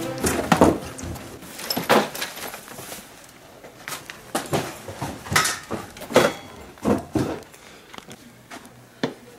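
Irregular knocks, clatters and rustling from rummaging through piled belongings and a rack of clothes on hangers.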